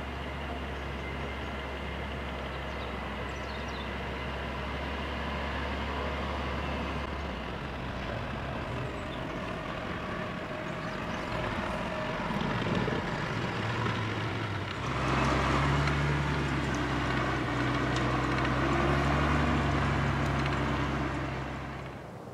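A steady low engine hum of a motor vehicle, with a hiss over it, getting louder about fifteen seconds in and falling away near the end.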